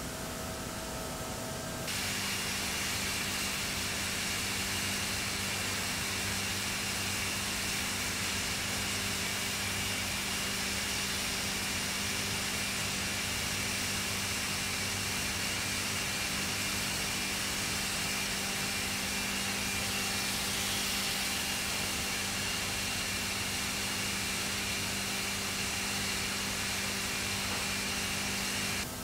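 Steam hissing steadily over a constant low machine hum, cutting in abruptly about two seconds in.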